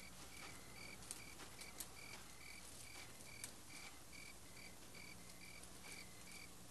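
Faint cricket chirping, short even chirps at about two and a half a second, over a faint steady low hum.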